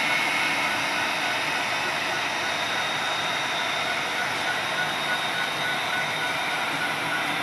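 HO scale model freight train running on the layout: a steady rolling noise from the wheels on the track, with a faint hum from the running gear.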